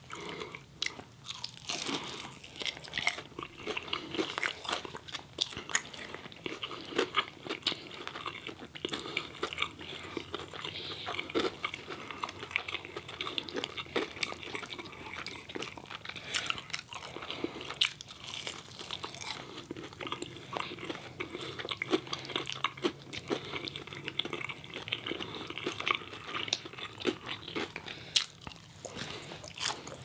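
Close-miked eating sounds: two people biting and chewing fried chicken fingers and toast, with dense, continuous crunching.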